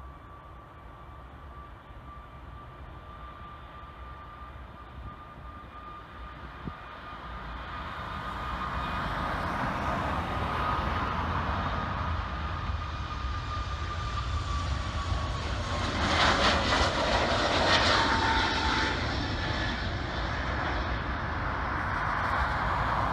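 Boeing 737 MAX's CFM LEAP-1B turbofan engines at take-off thrust as the jet rolls, lifts off and climbs past: a steady high fan whine over a low rumble. The sound grows louder about a third of the way in. Past the halfway point the whine falls in pitch as the aircraft goes by.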